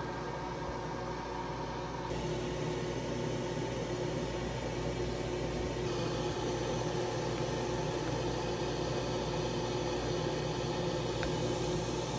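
Steady car engine and road hum heard from inside the cabin while driving.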